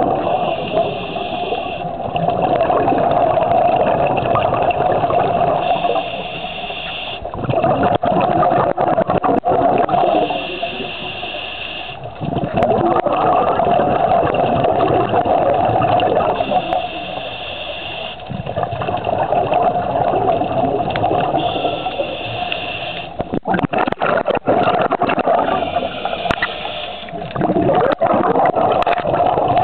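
Scuba diver breathing through a regulator underwater. A short hiss of inhaled air comes about every five seconds, six times in all, and each is followed by a longer, louder rush of bubbling exhaled air.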